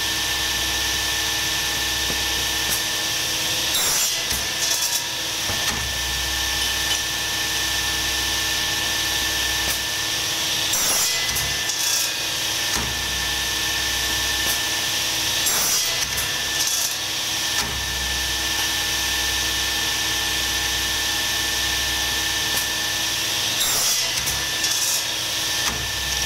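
A motor-driven workshop machine running steadily with a constant hum and whine. A low rumble comes and goes every few seconds as it takes and drops the load, with short scraping bursts about four times.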